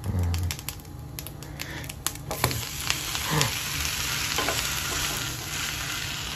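A few clicks and scrapes of a spatula against a frying pan, then, about two and a half seconds in, a steady loud sizzle as the buttered side of a grilled cheese sandwich frying in the pan.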